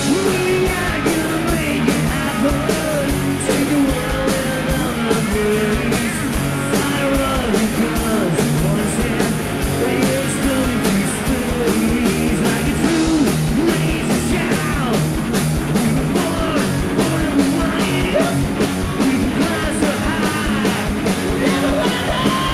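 Live rock band playing loudly: a man singing into a handheld microphone over electric bass, electric guitar and a steady drum beat.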